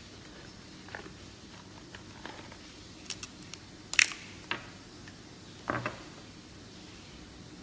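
Handling noise: scattered light clicks and taps from hands working close to the phone, with the sharpest click about four seconds in and a duller knock near six seconds.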